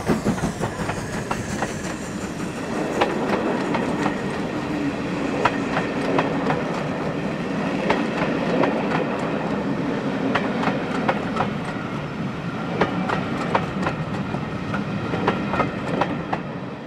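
A steam-hauled train's coaches rolling past, their wheels clicking over the rail joints, with a steady rumble underneath; the locomotive's rhythmic exhaust beats fade away in the first second.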